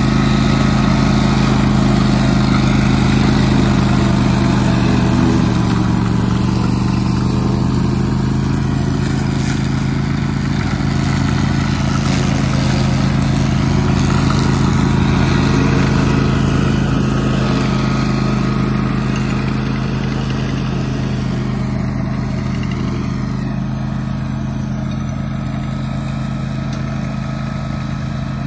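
Kawasaki engine of a Tracmow XROT80 remote-controlled tracked slope mower running steadily at working speed while its FLEXCUT head cuts tall grass. The engine note holds an even pitch and grows a little fainter over the last several seconds as the mower moves away.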